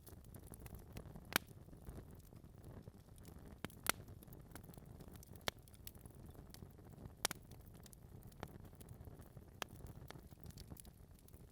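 Wood logs burning in a fireplace: a faint, low rustle of flames with sharp, irregular crackles and pops every second or so, the loudest two about a second in and near four seconds in.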